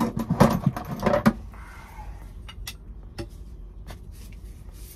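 Handling noises as a copper press elbow is fetched from among plumbing fittings: clattering and sharp knocks for about the first second, then scattered light clicks and taps.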